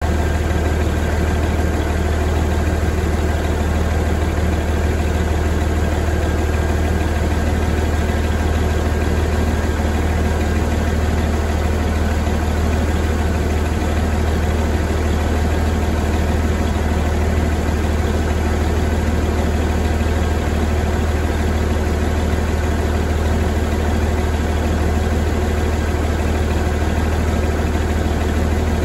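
2009 Cummins ISX inline-six turbodiesel idling steadily, a deep, even running sound that holds unchanged throughout.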